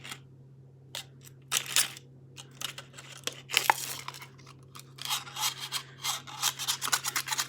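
Scraping and clicking of a tool prying at the inside of an opened iPod, a few scattered strokes at first, then a quick run of rapid scraping strokes about five seconds in. A steady low hum lies underneath.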